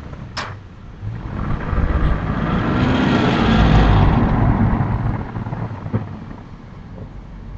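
A vehicle passing by on a road, its noise swelling to a peak about three to four seconds in and then fading away. A short sharp knock comes just before it.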